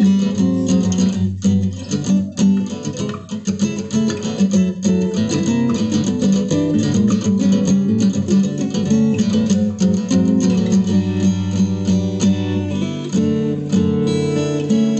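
Solo acoustic guitar playing a flowing instrumental: quick plucked melody notes over ringing bass notes.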